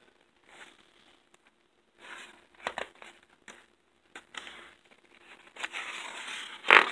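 Paper pages of a picture book rustling as they are handled and turned: a series of short rustles, busier toward the end, with a sharper slap of the page near the end.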